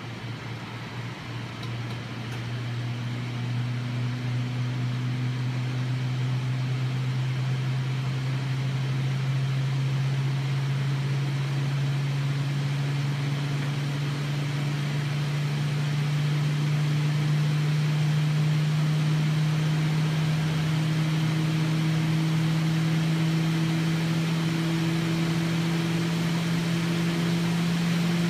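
SP-T156 benchtop centrifuge spinning up: a steady motor hum that rises slowly and evenly in pitch as the rotor accelerates from about 1,700 to 2,500 rpm. It grows louder over the first few seconds.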